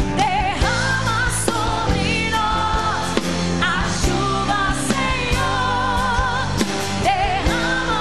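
Live Christian worship song: women's voices singing long, wavering notes with vocal runs over a full band with drums.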